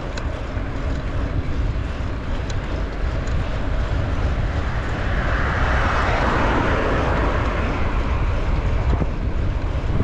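Wind buffeting the microphone of a handlebar-mounted camera over the rumble of bicycle tyres on asphalt as the bike rolls along. In the middle a broader rushing noise swells and fades over a few seconds, like a vehicle or aircraft passing.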